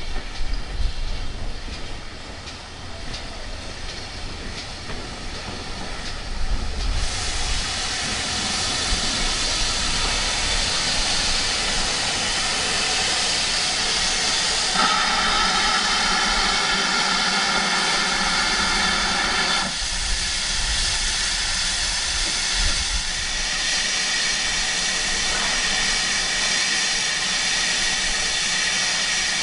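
GWR Manor-class steam locomotive No. 7812 Earlstoke Manor drawing in with a low rumble. About seven seconds in, a loud, steady hiss of escaping steam starts and runs on, stronger for a few seconds midway.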